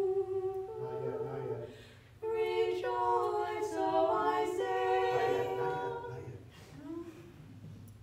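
Small a cappella choir singing an Orthodox liturgical response in sustained chords. There is a short break about two seconds in, and the singing fades out about six seconds in.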